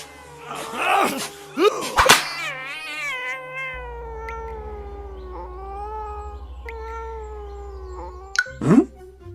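A kitten crying: one long, drawn-out meow whose pitch slowly falls over about six seconds. It comes after a couple of short scuffling noises and a sharp knock, and a quick rising cry follows near the end.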